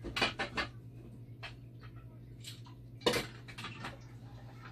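Hard clicks and clatter of a dialysis machine's plastic heat exchanger being handled: a quick run of taps at the start and a louder knock about three seconds in, over a steady low hum.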